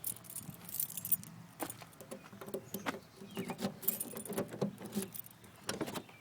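A bunch of keys jangling and clinking as they are handled, in quick irregular clicks and rattles.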